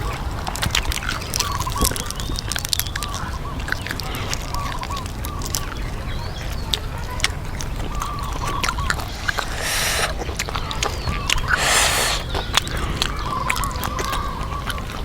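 Crunching and chewing of deep-fried chicken, heard as many short crisp clicks, with two longer crunchy rustles about two-thirds of the way through.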